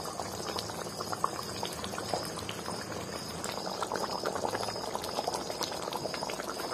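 Masala fish curry gravy boiling in a kadai: a steady bubbling full of small pops.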